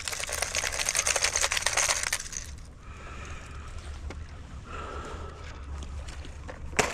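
Hard-plastic jerkbaits clicking and rattling against each other and the plastic tackle box as a hand rummages through it, for about two and a half seconds; then much quieter, with one sharp click near the end.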